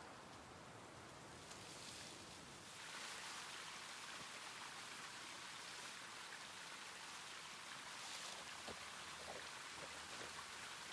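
Woodland stream running with a steady hiss that grows louder about three seconds in, and faint crackles of footsteps through dry undergrowth in the last couple of seconds.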